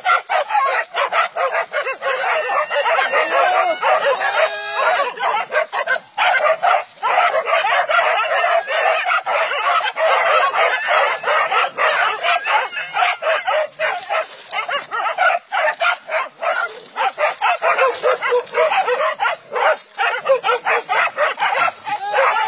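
A pack of hunting dogs barking and yelping without a break in a dense, overlapping chorus, with a few sliding yelps in the first few seconds, as they hold a wild boar at bay.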